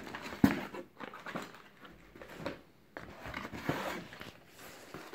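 Cardboard packaging being handled: flaps and inserts rustling and scraping, with a sharp knock about half a second in and smaller knocks after it.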